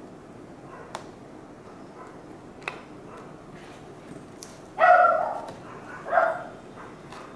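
A dog barking twice, the first bark about five seconds in and the loudest, the second a second later. Before them come a few faint clicks of book pages being turned.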